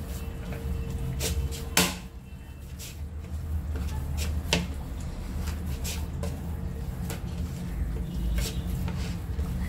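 A hand kneads fresh chhana (cheese curds) with flour on a plate, rubbing and pressing it with the palm. A few sharp knocks on the plate stand out, the loudest about two seconds in, over a steady low hum.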